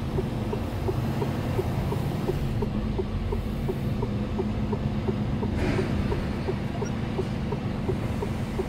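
Truck's diesel engine running, a steady low drone heard from inside the cab, with light ticking about two to three times a second and a short hiss about six seconds in.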